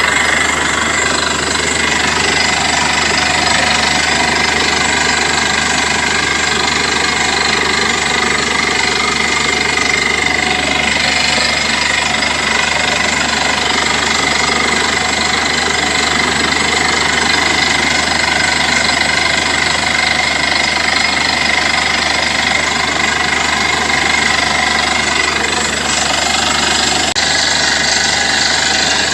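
Borewell drilling rig running steadily: a loud, continuous mechanical noise of engine and drilling with no pauses.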